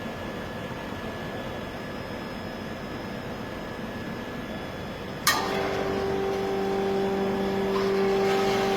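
Automatic beer keg washer running with a steady rushing noise; about five seconds in a sharp clack, after which a motor starts with a steady hum and the sound grows louder.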